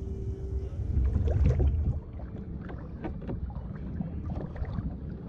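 Water lapping and ticking against a kayak hull, with many small irregular clicks. Low wind rumble on the microphone during the first two seconds, then it drops away.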